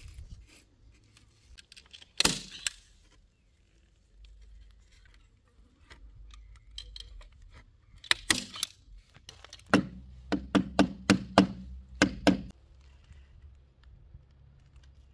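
Hand staple gun firing staples through shade netting into a wooden frame: one sharp clack about two seconds in, a couple more about eight seconds in, then a quick run of about seven clacks.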